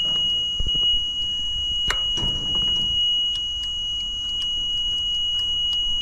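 Continuous high-pitched warning buzzer from an aerial lift's control panel, sounding with the power switched on while its engine, out of propane, does not start. A few sharp clicks and knocks from the controls are heard over it.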